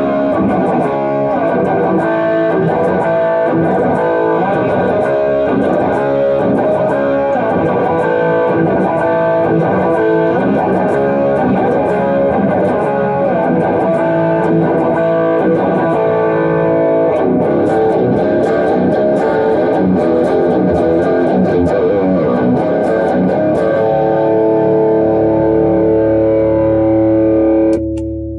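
Electric guitar tuned to drop B (C-sharp standard with the low string dropped to B), played through effects: a continuous run of chords and riffs. It settles on held, ringing chords and fades away near the end.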